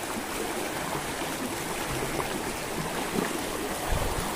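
Shallow, rocky mountain river rushing steadily over stones and churning around a person sitting in the current.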